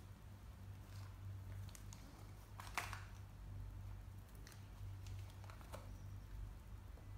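Low steady hum of an XGIMI H1 projector still running while its picture is frozen. A few faint clicks, with one sharper click a little under three seconds in.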